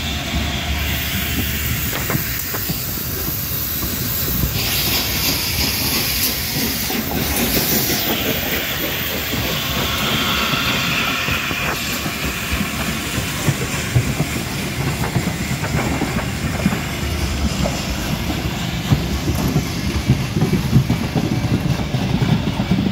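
Peppercorn A1 Pacific steam locomotive 60163 Tornado working a passenger train past at close range, with a loud hiss of steam from about five to eight seconds in and again briefly around ten seconds. Then the coaches roll by, their wheels clicking irregularly over the rail joints, more densely near the end.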